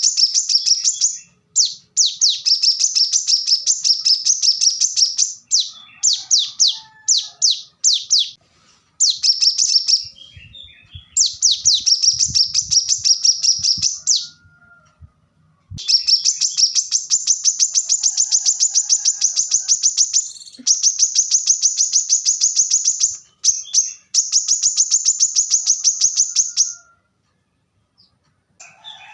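Brown-throated sunbird (kolibri kelapa) singing: phrases of fast, closely packed high-pitched chirps, each running for a few seconds, separated by short pauses.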